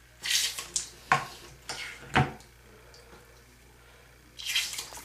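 Short spurts of water splashing: several in the first couple of seconds with two sharp clicks among them, then one more near the end. Ear irrigation, warm water syringed hard into the ear to flush out earwax.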